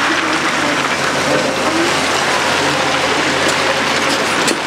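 Hyundai Robex 800 front shovel digging into blasted rock: a dense steady rattle and hiss of stones and gravel scraping and spilling from the bucket over the excavator's running engine, with a few sharp stone knocks near the end.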